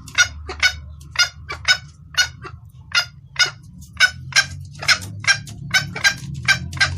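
Junglefowl hen calling in a long run of short, sharp clucks, about two to three a second, slightly quickening in the second half: the hen's call to a male, used as a lure call.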